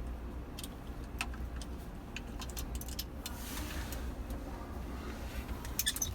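Scattered light clicks and taps of small parts being handled, a quick cluster of them near the end, over a steady low electrical hum.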